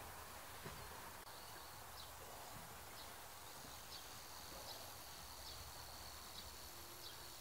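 Faint outdoor natural ambience: a thin, steady high-pitched tone with soft chirps repeating about once a second, over a low rumble.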